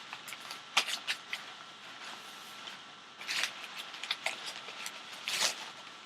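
Hands handling packaging: crinkling rustles and small clicks, with louder bursts about a second in, a little past three seconds and a little past five seconds.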